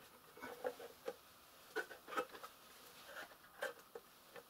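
Faint handling noise from the Sinclair ZX Spectrum+ mock-up's case as it is lifted and turned over by hand: a scatter of light clicks and knocks, about half a dozen over a few seconds.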